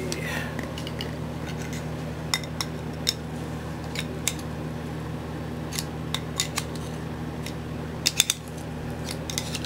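Steel clutch plates and rings of a limited-slip differential clinking and tapping against each other and the bench as they are handled: scattered light metallic clicks, with a quick cluster near the end.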